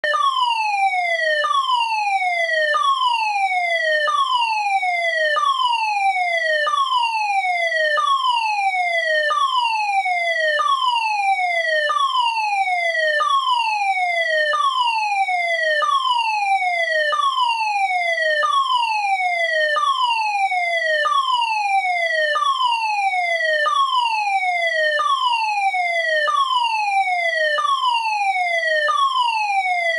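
Fire alarm sounding a repeating falling sweep tone. Each sweep drops steadily in pitch over about a second and a third, then starts again high, with no pause between sweeps.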